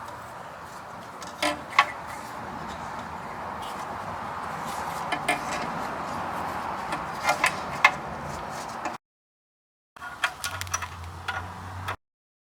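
Scattered light metallic clicks and knocks from hand-fitting a new automatic-transmission filter and its bolts, over a steady background hiss. The sound cuts out to dead silence twice near the end.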